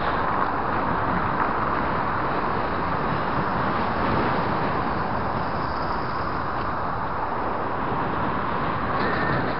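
Steady rush of wind over a bike-mounted camera's microphone while riding, mixed with road and traffic noise.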